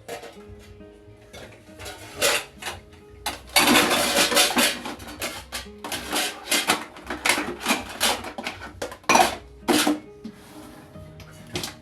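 Dishes, pots and cutlery clattering and clinking in a series of sharp knocks, with a longer rush of noise about three and a half seconds in, over soft background music.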